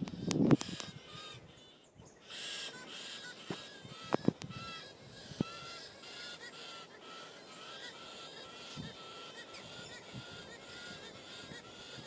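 Birds calling in the trees: a steady run of short, repeated calls, two or three a second, with higher chatter above. There is a low thump on the microphone near the start and a couple of sharp clicks about four seconds in.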